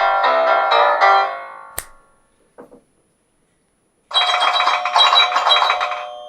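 iPhone 4 alert tones on iOS 5 played one after another, each started by a sharp click. A short melodic phrase rings out first. After a brief pause about four seconds in, a denser, bright, fast-repeating tone phrase follows and rings out.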